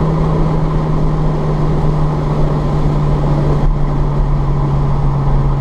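Mini One R50's four-cylinder petrol engine, with a Scorpion aftermarket exhaust, droning steadily at high revs as heard inside the cabin, its note sinking slowly and evenly lower. Tyre noise from the wet road underneath.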